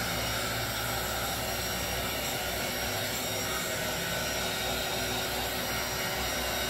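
Small handheld heat gun running, blowing hot air over a liquid resin pour with a steady, unbroken rushing hiss.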